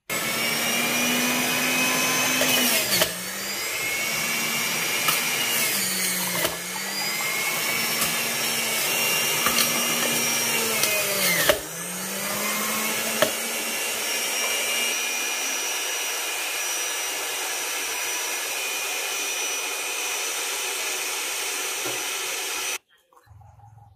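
Electric blender running flat out, making apple juice: a loud steady motor whine that dips in pitch and recovers three times as the blades bog down on the load, then runs steadier and cuts off suddenly near the end.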